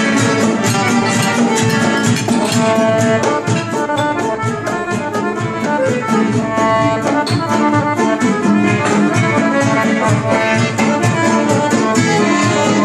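Piano accordion, acoustic guitar and darbuka playing a tune together live, the accordion's held notes over strummed guitar and a steady drum beat.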